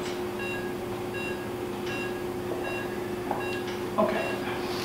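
Patient monitor's pulse oximeter beeping once per heartbeat, about every three-quarters of a second, at a steady pitch with saturation at 99–100%, over a steady hum of theatre equipment. A soft knock comes about four seconds in.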